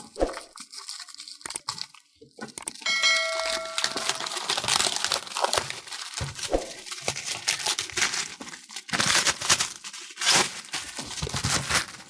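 A shipping package's wrapping being torn open and crinkled by hand, in a run of scratchy tearing and rustling. A brief ringing ding sounds about three seconds in.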